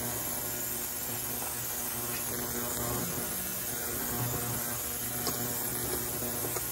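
Steady low electrical hum, with a few faint small knocks from work on the saw.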